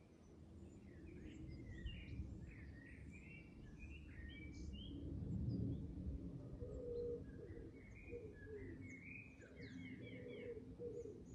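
Small birds chirping and twittering in quick repeated phrases, with lower short calls repeating in the second half, over a faint low outdoor rumble.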